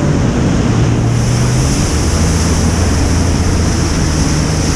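Jet ski engine running steadily under way, with water rushing against the hull and wind buffeting the microphone.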